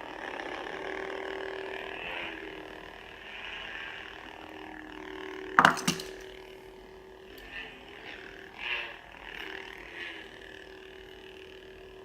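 Collectible lightsaber's sound module playing its steady electronic hum through the built-in speaker, with whooshing swells that rise and fade. There is a sharp crack about five and a half seconds in.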